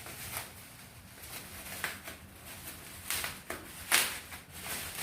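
Rustling and scattered light clicks and knocks as a trimmer router and its packaging are handled, with the sharpest knocks about three and four seconds in. The tool itself is not running.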